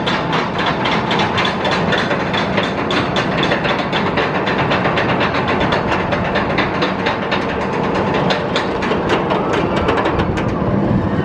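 Stand-up roller coaster train climbing its chain lift hill: a rapid, even clacking of the anti-rollback ratchet over the steady running noise of the lift chain. The clacking stops near the end as the train crests the top.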